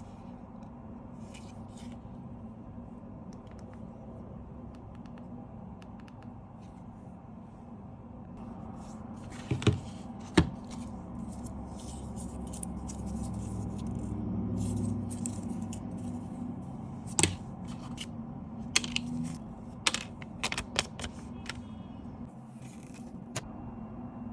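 Handling sounds of a new iPhone 15 Pro and its packaging being unboxed: scattered sharp clicks and taps, two loud ones about ten seconds in and a cluster later on, over a steady low hum.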